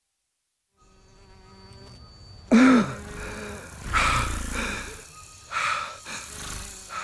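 Fantasy-forest ambience fading in after a second of silence: insect-like buzzing with a thin high whine, then four loud sudden creature-like calls or swooshes about a second and a half apart, the first rising and falling in pitch.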